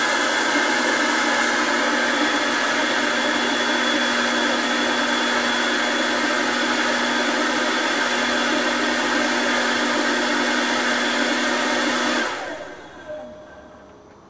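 Hair dryer blowing into the inlet pipe of a model beam engine to drive it: a loud, steady blowing hiss with a steady hum. About twelve seconds in the dryer stops and the sound dies away within a second or two.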